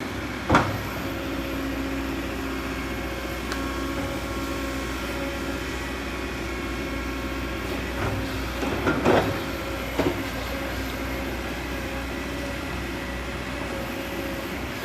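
Kobelco 220 hydraulic excavator's diesel engine running steadily under work. A sharp knock comes about half a second in, and a few more clanks come around nine to ten seconds in.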